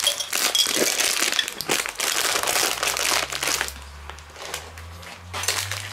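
Crinkly plastic bag of raisins being handled, squeezed and tipped out, a dense crackling rustle that eases off a little past halfway and comes back briefly near the end.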